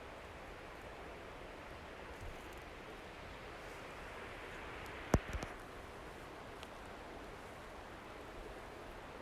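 Steady, faint rushing noise with a single sharp knock about five seconds in.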